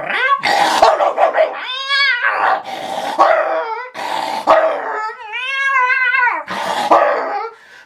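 A man imitating a dog and a cat fighting with his voice alone: rough snarling and barking, broken by two long, arching cries, one about two seconds in and one near the middle to end.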